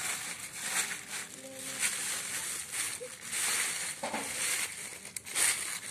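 Thin plastic bag crinkling and rustling in irregular bursts as a hand handles it, with a load of fish inside.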